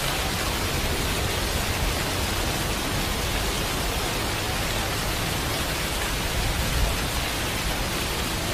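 A steady, even hiss like heavy rain that keeps the same level throughout, with no music or voice over it.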